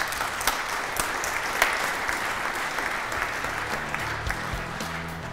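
Audience applauding, a dense spread of many hands clapping. Background music comes in underneath about four seconds in.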